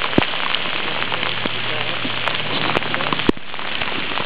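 Steady hiss and patter of water with a few sharp knocks, from a skin-on-frame canoe being paddled.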